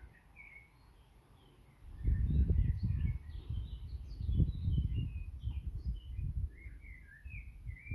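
Small birds chirping in the background, with a low rumbling noise on the microphone starting about two seconds in, loudest in the middle and dying away near the end.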